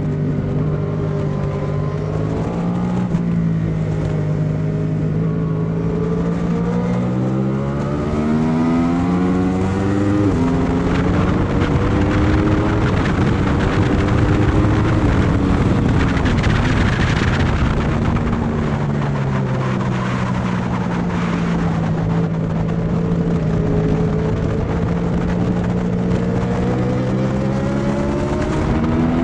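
Yamaha R1 sport motorcycle's inline-four engine ridden hard, with wind rushing past. The engine note holds steady, climbs in steps as it revs up through the gears, falls away briefly about two-thirds of the way in, then settles back to a steady note and rises again near the end.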